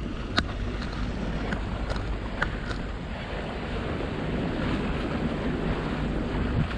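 Wind buffeting the microphone over the steady rush of water along a boat under way, with a few short sharp knocks in the first three seconds.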